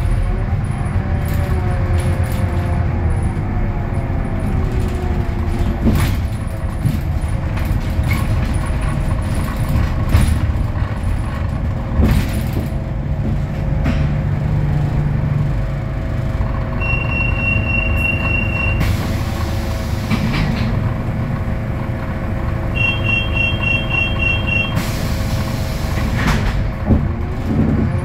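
Scania K320UA articulated bus with its DC09 five-cylinder diesel, heard from on board: the engine note falls over the first few seconds as the bus slows, then holds steady. Twice, a short beeping is followed by a hiss of compressed air. The engine note rises again at the very end.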